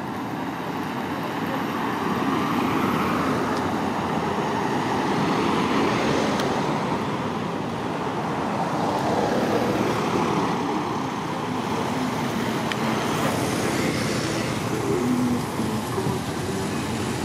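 Road traffic passing: a steady rush of vehicle noise that swells and fades several times as vehicles go by.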